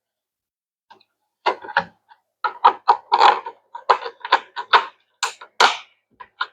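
3D-printed plastic tower sections clacking and knocking against each other as they are handled and fitted together. It is a quick, irregular run of sharp clicks and knocks, starting about a second and a half in.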